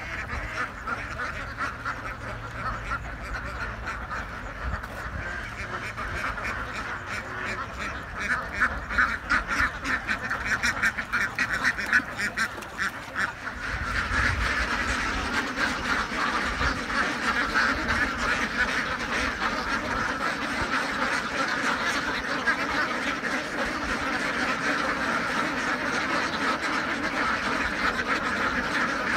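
A large flock of domestic ducks quacking continuously in a dense, overlapping chorus. It grows louder about halfway through.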